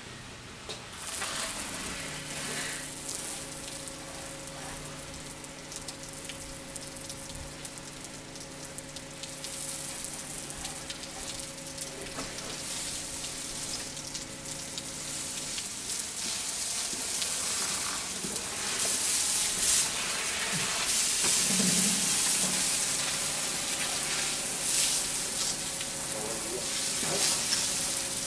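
Soft-wash spray hissing as a low-pressure stream from a long wand wets a barrel-tile roof, growing louder in the second half. A steady motor hum runs underneath, stops about halfway through and comes back a few seconds later.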